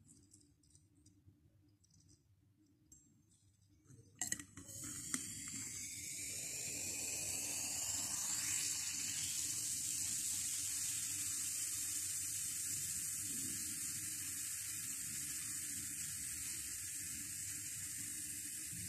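Baking soda and vinegar fizzing in a glass bottle: after a few sharp clicks about four seconds in, a steady high hiss of bursting carbon dioxide bubbles starts, swelling over the next few seconds as the foam rises out of the neck, then holding.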